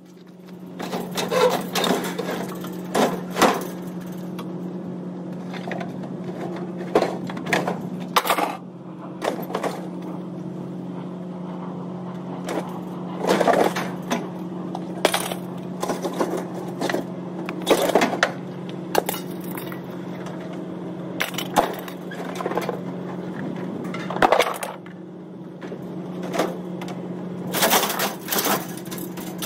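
Scrap appliances and metal racks being shoved, tipped and dragged across a trailer bed: repeated clanks, bangs and scrapes of sheet metal, some loud. Under them runs a steady engine hum.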